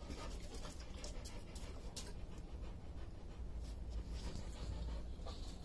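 A dog panting faintly, with a few faint clicks over a low steady rumble.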